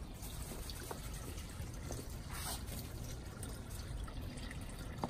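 Faint steady trickle of water from a garden pond, with a few soft ticks scattered through it.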